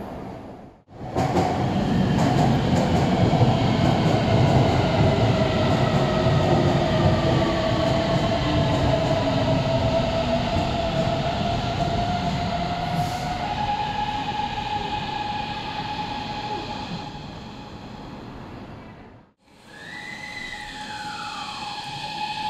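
Beijing Subway BDK03 train's IGBT VVVF traction inverter whining over wheel and rail noise. The inverter tones glide slowly downward as the train brakes, then settle into a steady tone as it slows. After a cut, a train's inverter tone rises briefly and then drops quickly, the 'falling' character of this inverter.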